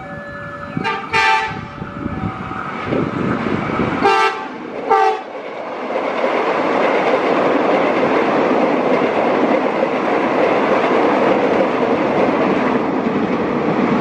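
A KRL Commuter Line electric train approaches a level crossing. The crossing's stepped siren tone is still sounding at the start, and the train sounds two pairs of short horn blasts, about a second in and again around four seconds in. From about six seconds in, the train runs past with a loud, steady rush of wheels on the rails.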